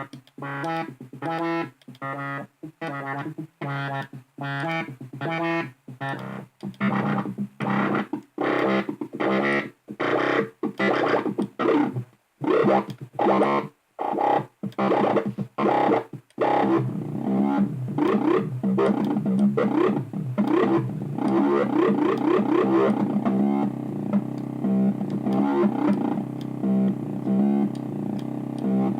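Software synthesizer played as a keyboard sound test: short, separated chord stabs for the first half, then from about 16 seconds in a continuous sustained pad whose tone sweeps and shifts.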